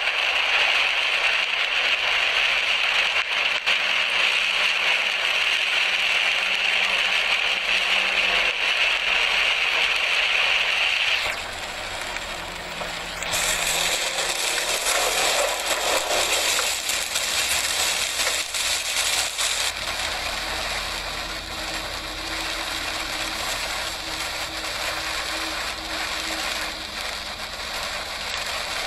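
Cabin noise of an SUV driving slowly over a wet, muddy off-road track in the rain, picked up by a dashcam: a steady hiss of rain and tyres with rattling from the car. The sound drops and changes about eleven seconds in.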